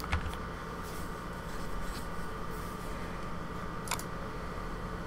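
Computer mouse clicks: a sharp click at the start and another about four seconds in, with a few fainter ticks between, over a steady low hum of room noise.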